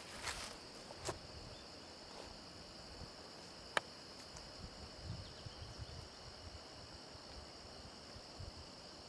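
Steady, high-pitched insect drone in woodland, with a few soft knocks near the start and a sharp click almost four seconds in.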